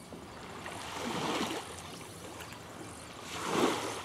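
Small waves washing in, two swells of water noise about two seconds apart, the second louder near the end.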